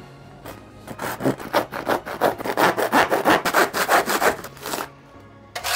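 A hand saw cutting through the hard plastic housing of an old car charcoal (evap) canister, in quick back-and-forth strokes about three a second. The sawing stops about a second before the end.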